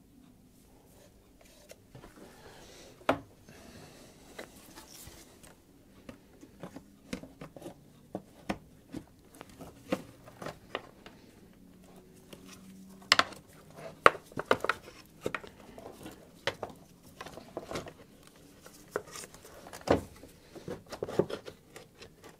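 Hands refitting parts in a car's engine bay: a string of irregular clicks, knocks and rustles of plastic and metal, with sharper knocks about 3 seconds in, a cluster around 13 to 14 seconds in, and another near 20 seconds in.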